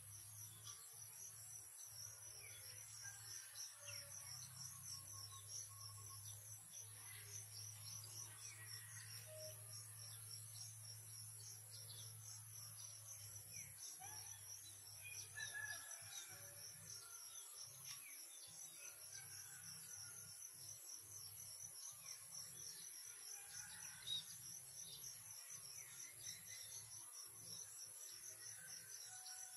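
Faint, steady high-pitched trilling of insects in the grass, with a few faint scattered chirps.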